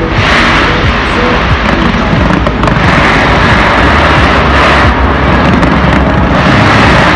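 Fireworks barrage: a dense, continuous run of bangs and crackling that merges into one loud wash, easing briefly about three and five seconds in.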